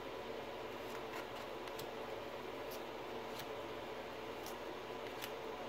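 Topps baseball trading cards being slid one at a time off a stack in the hands, a faint papery flick about once a second over a low steady room hum.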